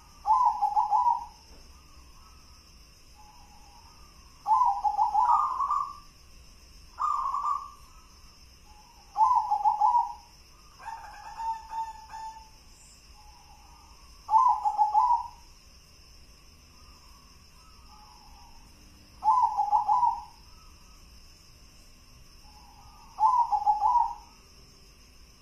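Zebra dove (perkutut) singing its cooing song: a short rolling phrase of coos repeated eight times, a few seconds apart, one of them softer.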